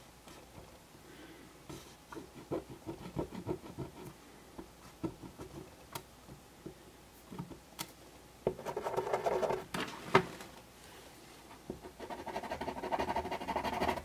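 Felt-tip permanent marker dabbing and scrubbing on the ridged plastic grille of a model locomotive body shell, its ink running low: a run of light ticks, then two spells of quicker scratching, about eight seconds in and again near the end, with a sharp click between them.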